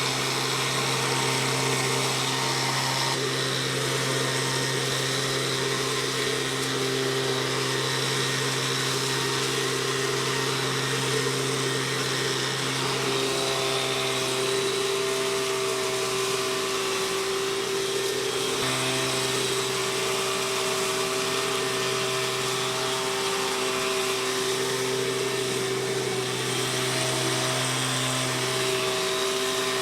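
Stihl SH 86 blower-vac's 27.2 cc two-stroke engine running steadily at constant speed, a continuous drone with an airy hiss.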